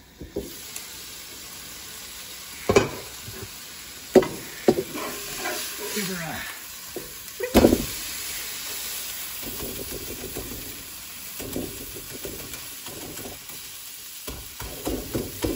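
Steak sizzling in a hot frying pan, a steady hiss, broken by several sharp clinks and knocks in the first half as the glass lid comes off and a metal spatula works against the pan.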